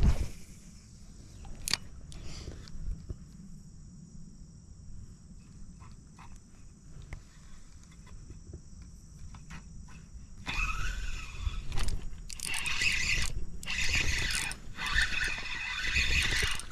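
Spinning fishing reel being cranked to bring in line, a whirring gear sound in uneven spurts starting a little past halfway, after a quieter stretch with a few light clicks.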